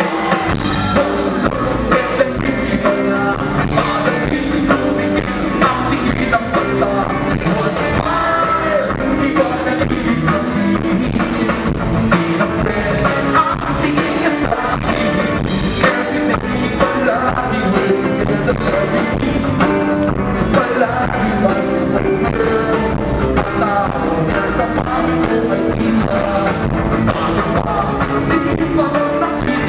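Rock band playing live: a singer over drums and electric guitar with a steady beat, heard from within the audience.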